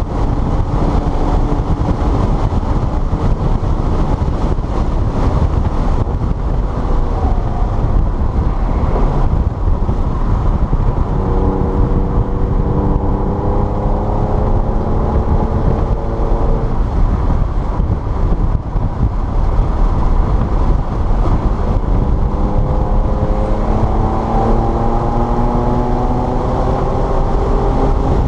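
Car engine heard onboard at speed on a wet track, under a heavy, steady rumble of wind and road noise. The engine note climbs slowly in pitch under acceleration twice, about halfway through and again near the end.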